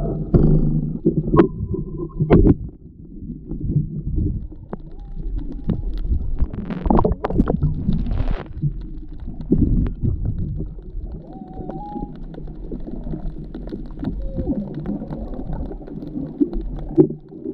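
Underwater sound picked up by an action camera in its housing on a speargun: muffled water movement and low rumbling, with scattered knocks and a brief hissing burst about seven seconds in.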